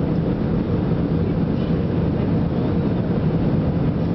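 Steady cabin noise of an Airbus A320-family airliner on approach, engine and airflow noise heard from inside the cabin near the wing. It is an even, low-heavy noise with a faint steady hum in it.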